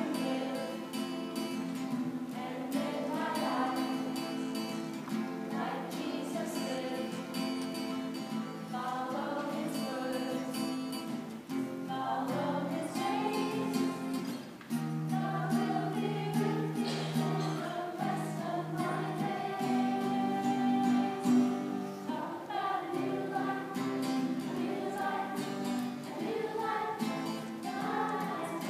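A children's choir singing a song together in unison, with instrumental accompaniment.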